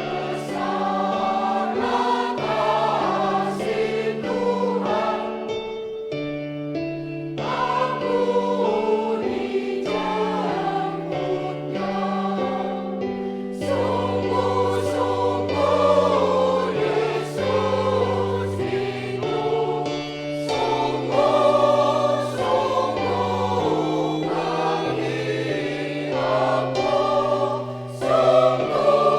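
Church choir singing in harmony, several voice parts holding notes together and moving from chord to chord.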